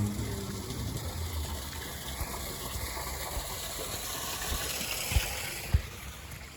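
Tyres of a car hissing on a wet road as it moves away, the spray fading near the end, with two short low thumps toward the end.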